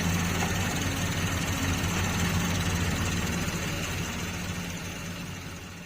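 Doosan 140 excavator's diesel engine idling with a steady low hum, fading away over the last couple of seconds.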